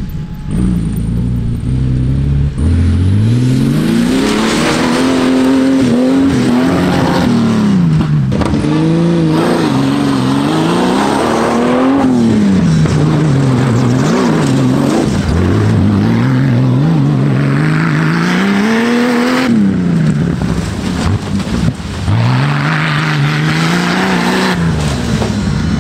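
Off-road race buggy's engine revving loudly as it is driven through corners on dirt, its pitch climbing and dropping again and again as the driver accelerates and lifts off.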